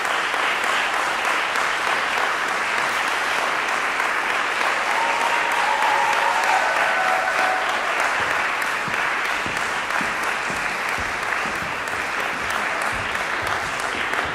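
A concert-hall audience applauding steadily after a performance.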